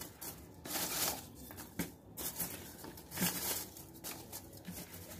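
Styrofoam pieces rustling and crinkling as they are pressed into the bottom of a clay pot, in short irregular bursts with soft clicks, followed by the rustle of the orchid's leaves and roots being handled.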